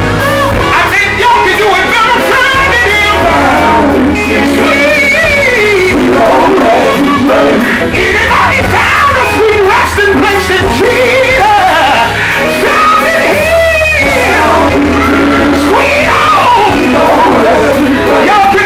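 Male gospel quartet singing live through a PA system, with band accompaniment and a steady bass underneath.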